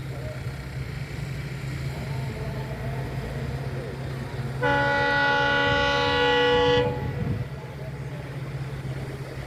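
WDP4D diesel-electric locomotive's engine running with a steady low hum. About halfway through, the locomotive's horn sounds one loud, many-toned blast lasting about two seconds.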